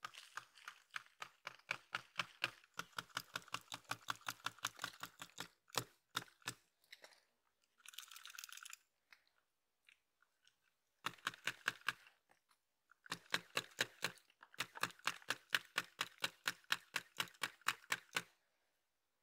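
Mud-caked toy model Jeep scraped back and forth along an old rubber tyre: rapid gritty strokes about five a second, in three runs with short pauses between.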